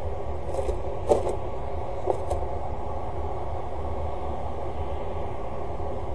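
Steady low outdoor rumble on the nest-box webcam's microphone, with a few short knocks about one and two seconds in as a peregrine falcon steps from the grating into the nest box.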